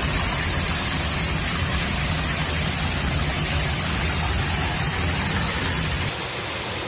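Heavy rain pouring down, a dense steady hiss. The sound becomes slightly quieter and changes texture about six seconds in.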